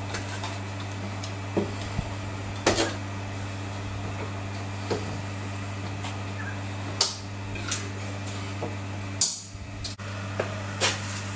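Scattered knocks and clacks of a folding aluminium-framed solar panel being handled and closed on a workbench, over a steady low hum.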